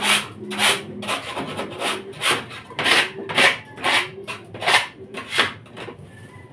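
Rhythmic scraping strokes on a hard surface, about one every two-thirds of a second, from cleaning out a pigeon loft; they stop about five and a half seconds in.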